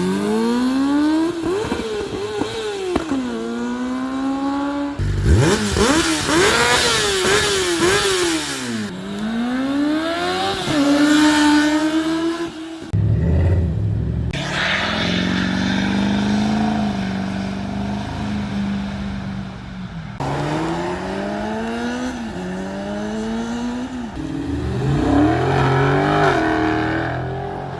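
Several separate passes of vehicles accelerating hard. Each engine's pitch climbs through a gear and drops at every shift, and the sound changes abruptly about 5, 13 and 20 seconds in, where one pass cuts to the next.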